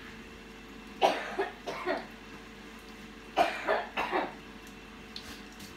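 A woman coughing in two short fits of about three coughs each, set off by smoke from hot frying oil.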